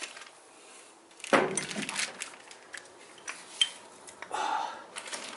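Steel engine parts, a Cummins 6.7 piston and connecting rod, clinking and knocking as they are fitted together by hand: one louder knock about a second in, then scattered light clinks, one with a short ring, and a brief scrape near the end.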